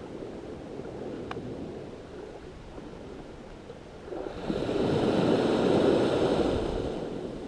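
Small surf wave washing up the sand at the water's edge: a rush of water that swells from about four seconds in and dies away near the end, over a low steady wash of the sea.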